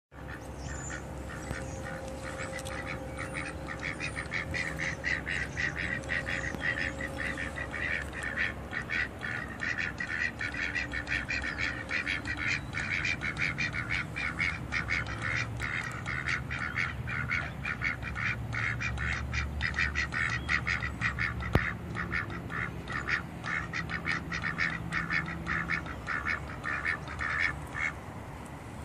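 Two white domestic ducks quacking together in quick, unbroken runs of short quacks, several a second.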